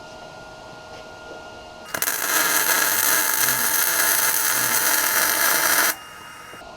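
A metal-fabrication tool runs for about four seconds with a loud, steady hiss full of high frequencies. It starts suddenly about two seconds in and cuts off abruptly, over a steady background hum.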